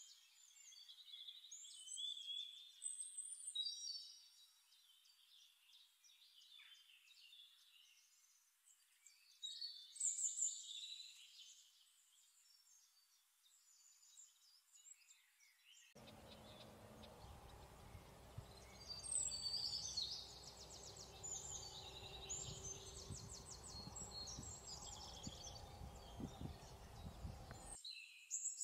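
Songbirds chirping and trilling, faint. About halfway through, a low background rumble comes in and stops again shortly before the end.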